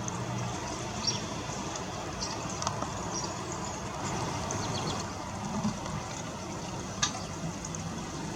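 Steady heavy rain, an even hiss of falling water, with a few faint short high bird chirps and one sharp tap about seven seconds in.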